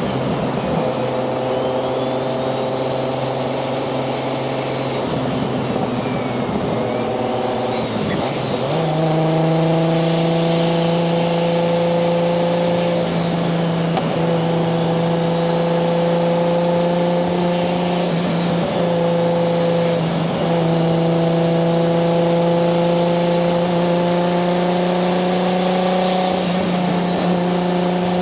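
Single-turbo Toyota 1JZ VVTi inline-six in a Nissan 240SX cruising at steady moderate revs. The engine note steps up about nine seconds in and eases briefly a few times, while a high turbo whistle rises and falls with the throttle.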